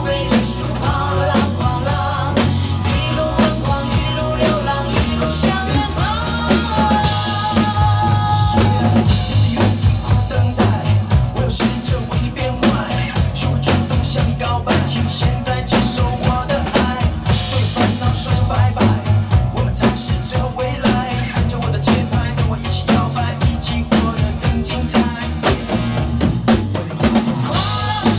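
Two acoustic drum kits played together in a steady, busy beat of bass drum, snare and cymbals, along with a pop backing track with singing.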